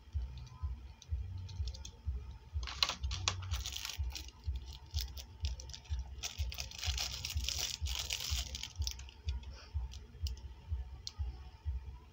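Stiff plastic packaging crinkling and clicking as it is handled, in a short burst about three seconds in and a longer one from about six to eight and a half seconds, with scattered clicks between. A regular low thudding, about two to three a second, runs underneath.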